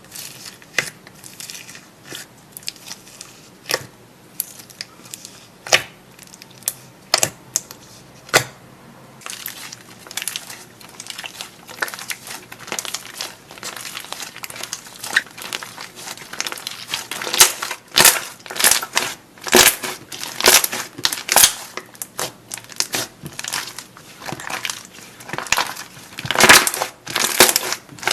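Crunchy slime being squeezed and worked by hand, giving irregular sharp crackles and pops. The crackles are spaced out at first and come thicker and louder after about nine seconds.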